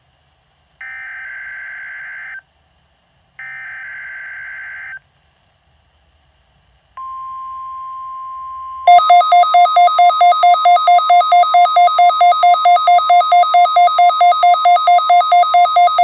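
Emergency Alert System Required Weekly Test on NOAA Weather Radio, heard through a Midland weather radio's speaker. First come two bursts of SAME digital header data, each about a second and a half long. About two seconds after the second burst a steady single tone sounds, and about nine seconds in the radio's own alert alarm breaks in as a loud, fast-pulsing beep that keeps going.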